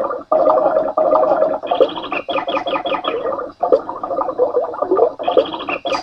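Secure Dog sound machine playing recorded birds chirping through its small speaker, a short loop that repeats about every three and a half seconds, each pass opening with a quick run of high chirps.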